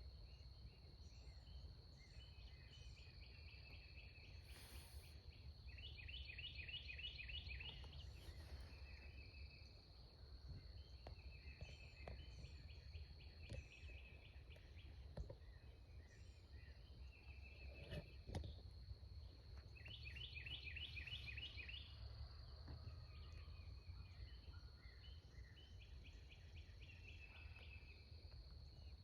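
Faint morning woods ambience: a steady high insect drone, with songbirds repeating short trilled phrases every few seconds over a low rumble of background noise.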